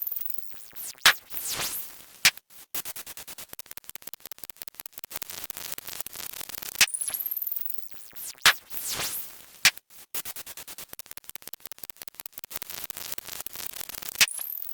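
Cartoon-style sound effects repeating about every seven seconds: a short rising zip, sharp clicks and a sweep that falls then rises, over a steady crackling hiss.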